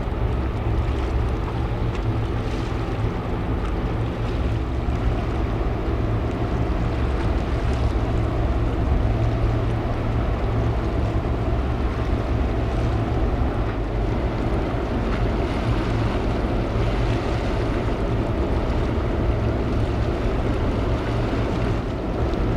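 The ferry AF Francesca's machinery giving a steady, deep rumble as the ship comes in to berth, with wind buffeting the microphone.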